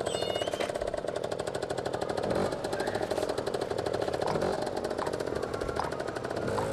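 Small motorbike engine running with a fast, even putter.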